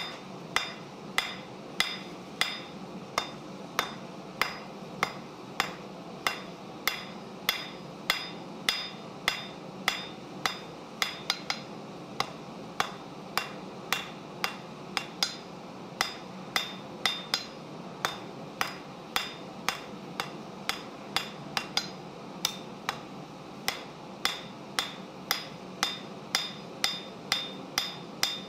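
Hand hammer striking a red-hot bar on an anvil in a steady rhythm of about two blows a second, each blow giving a sharp metallic clang with a brief ring, as the end of the bar is drawn out to a taper. A steady low hum sits underneath.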